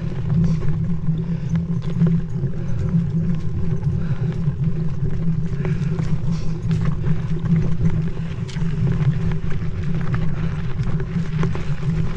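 Wind rushing over the camera microphone as a Marin Mount Vision mountain bike rolls along a dirt trail, with scattered clicks and knocks from the tyres and bike over rocks and roots.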